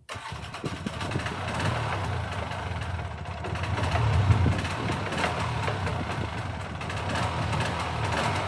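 Polaris Sportsman 400 ATV's liquid-cooled two-stroke engine idling after a cold start, swelling briefly about four seconds in.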